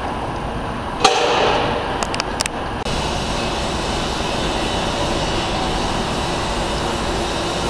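Steady city street traffic noise, a low rumble of passing vehicles. About a second in there is a sharp click, followed by a brief louder stretch with a few more clicks. Just before three seconds the sound cuts off abruptly and the traffic rumble carries on.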